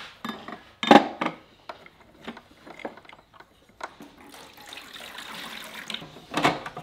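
Water poured from a glass jar into the plastic water tray of a tabletop wet tile saw, a steady pour starting about four seconds in. Before it, a run of knocks and clicks as the saw's blade and plastic parts are handled, the loudest about a second in; more plastic knocks near the end as the table top is set back on.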